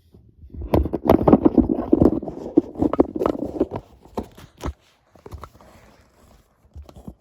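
Handling noise of a plastic action figure and its parts: a dense run of rustling and clicking for about three seconds, then scattered clicks.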